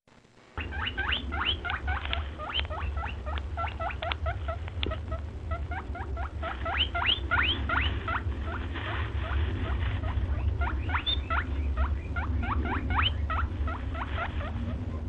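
A rapid string of short, high-pitched rising squeaks, several a second, over a steady low rumble, starting about half a second in and thinning out briefly in the middle.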